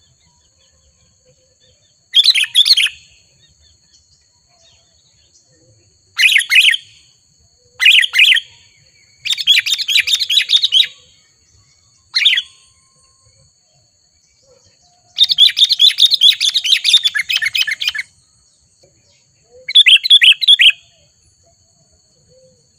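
Sooty-headed bulbul (kutilang) calling in seven separate bursts of quick, bright chattering notes. The bursts are short, with quiet gaps between them; the longest, about twelve seconds in, lasts nearly three seconds.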